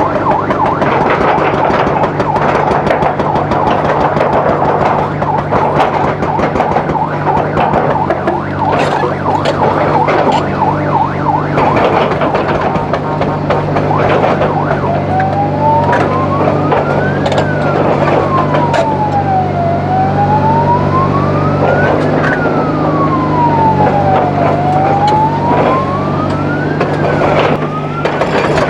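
Heavy diesel machinery running steadily under a busy mechanical clatter, with a siren starting about halfway through and wailing slowly up and down, a rise and fall every few seconds.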